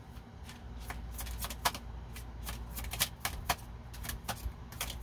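Tarot cards being shuffled by hand: a run of irregular light card clicks and snaps, several a second, getting busier toward the end.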